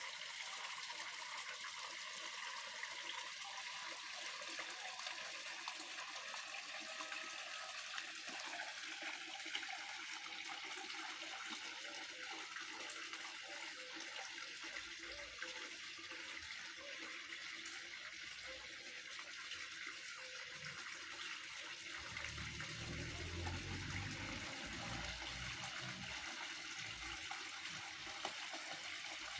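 Steady splashing and trickling of water from a garden pond's small waterfall. A low rumble comes in about two thirds of the way through.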